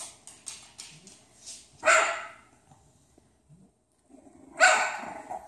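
English bulldog barking twice, two short pitched barks about three seconds apart, the second slightly longer.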